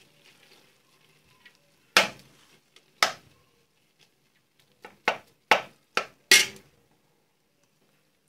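Long metal spoon knocking against metal cookware while rice is scooped and layered into the biryani pot: two sharp knocks about a second apart, then five quicker ones in a run a couple of seconds later.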